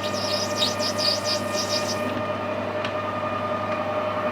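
Metal lathe running at a steady speed with a steady hum, a cutting tool working the spinning brass bar for the first two seconds with a high, uneven scraping.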